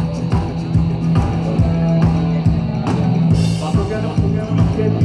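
Rock band playing live: a drum kit beating steadily under a held bass note and electric guitars, with a brighter crash about three seconds in.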